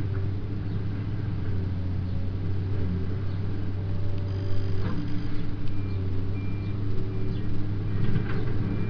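A Komatsu hydraulic excavator's diesel engine runs with a steady low hum as the machine works. From about halfway, a high beep repeats roughly every second, with a few light clatters near the end.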